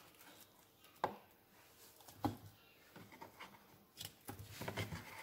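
Slices of ripe plantain picked up by hand off a wooden cutting board and dropped into a plastic bowl: faint, with a sharp knock about a second in and another after two seconds, then soft taps and rubbing.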